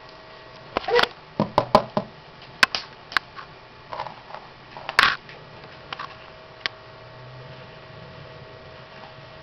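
A Yorkie puppy's dog boots clicking and knocking irregularly against the floor as it stumbles about in them. The clicks come in quick clusters over the first five seconds or so, then a couple of single taps, then they stop.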